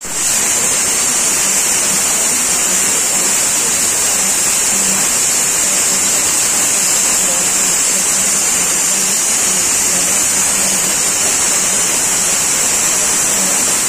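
Loud, steady rushing noise with a strong high hiss, which cuts off abruptly at the end.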